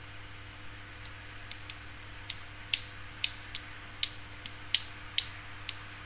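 About a dozen sharp, irregular clicks or taps, from about a second in until near the end, over a faint steady hum.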